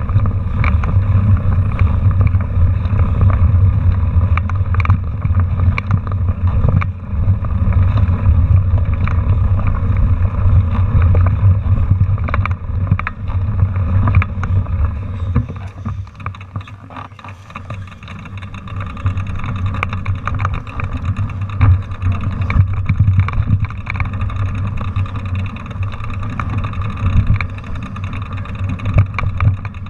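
Heavy wind rumble on a handlebar-mounted camera's microphone, with the clatter and knocks of a mountain bike jolting over a rough dirt trail. It eases off for a moment about halfway through, then picks up again.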